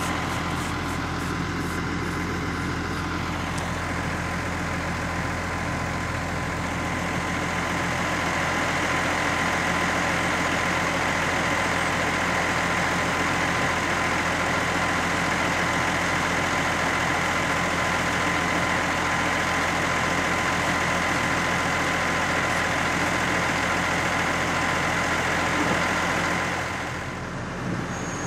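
Farm tractor's diesel engine running steadily with a steady high whine, a little louder from about eight seconds in and dropping away near the end.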